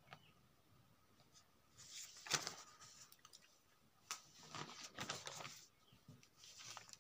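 Paper pages being handled and turned: a faint rustle about two seconds in, a longer stretch of rustling from about four to five and a half seconds, and a short one near the end.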